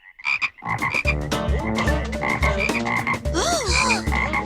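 An ice-cream truck's sound system, rigged with noise-makers, plays a weird sound that is no tempting jingle. It is a low thumping beat about twice a second under pulsing, warbling tones and a rising-and-falling whine. It starts about a second in after a brief gap.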